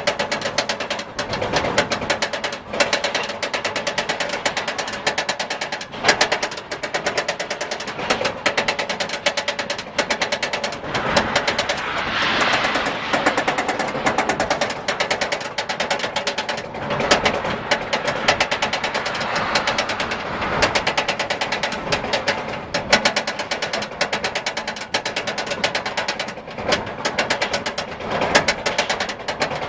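Goliath roller coaster train climbing its chain lift hill: a rapid, steady mechanical clacking of the lift chain and anti-rollback ratchet, many clicks a second, with a swell of rushing noise about twelve seconds in.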